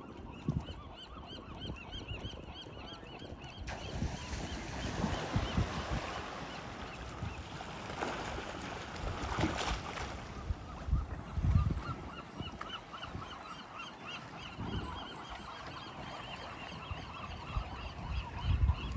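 Birds calling over and over in quick runs, over a wash of noise that swells in the middle, with a few low thumps.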